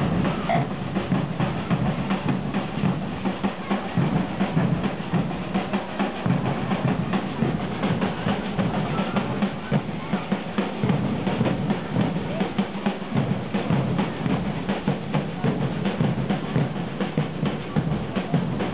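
Street percussion group playing a steady samba groove on large rope-tensioned bass drums and snare drums, with dense, unbroken drum strokes.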